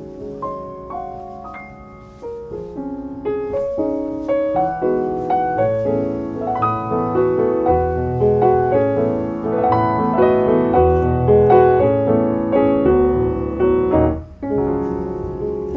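Background piano music: a gentle melody of single notes over chords, filling out with low bass notes about a third of the way in and dipping briefly near the end.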